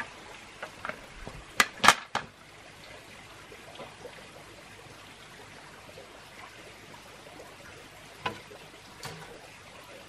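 Hollow knocks of green bamboo poles striking one another as they are handled, a quick cluster of three about two seconds in, over a steady background hiss, with two fainter knocks near the end.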